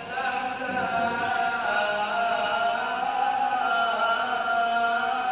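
A qori, a male Qur'an reciter, chanting in the melodic tilawah style into a handheld microphone: one long phrase of held, ornamented notes that step up and down in pitch.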